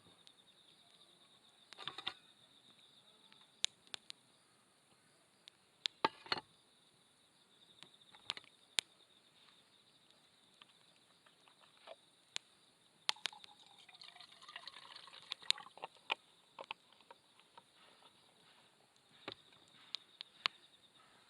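A wood campfire crackling with scattered sharp pops, over a steady high chirring of insects. About thirteen seconds in, a hissing runs for a few seconds.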